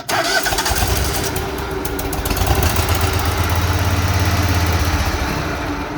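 Husqvarna zero-turn mower's engine starting on brake cleaner sprayed into the intake. It comes on suddenly, runs steadily for about five seconds, then dies away near the end. It runs only on the brake cleaner, which the owner takes for a fuel issue.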